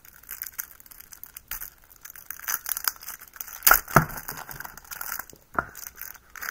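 Plastic wrapping crinkling and crackling as a shrink-wrapped deck of trading cards is torn open by hand, with a couple of sharper snaps about four seconds in and another shortly before the end.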